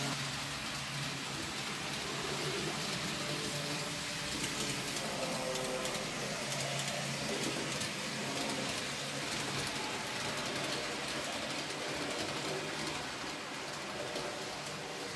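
N-gauge model train running along the layout track: a steady rushing rattle of small wheels on rail with a faint hum from the locomotive's small electric motor.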